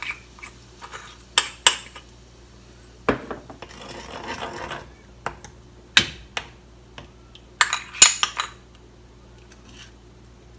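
A metal spoon clinks and scrapes against a ceramic bowl and a metal saucepan as matcha paste is scraped out and stirred into hot milk. Sharp clinks come at irregular moments, with a longer stretch of scraping about four seconds in.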